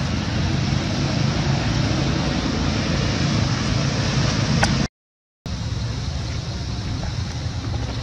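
Steady rushing outdoor background noise with a low hum underneath, like wind on the microphone or distant traffic. It cuts out to complete silence for about half a second, about five seconds in, then resumes.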